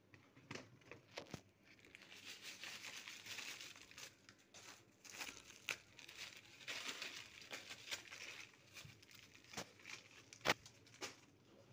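Faint crinkling and rustling of a plastic bag and woven plastic sack as coarse salt is shaken out over black olives for dry-salt curing, with a few sharp clicks.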